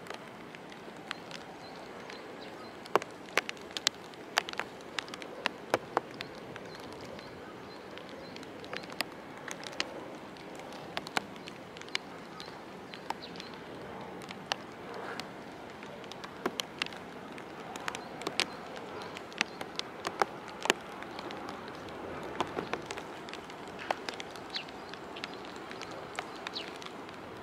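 Rain: a steady hiss with irregular sharp ticks of single drops striking close by, one or two a second.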